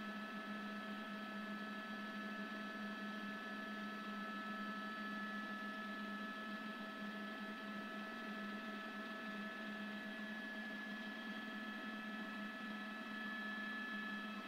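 Steady mechanical hum: a low drone with several constant higher tones over it, unchanging throughout.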